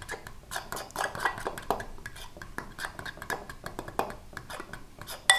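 A metal fork stirring thin batter in a glass mixing bowl, tapping and scraping against the glass in quick irregular clicks. Near the end one louder clink rings briefly.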